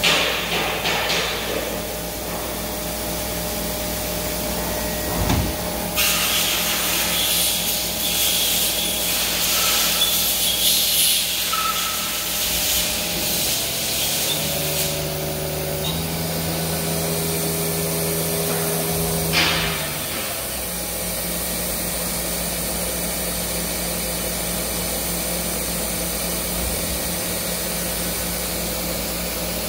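Mazak VTC-20C CNC machining centre running: a steady machine hum, with a hiss that comes in suddenly about six seconds in and lasts several seconds. Then a few steady tones change pitch in steps and end with a sharp click, before the hum settles again.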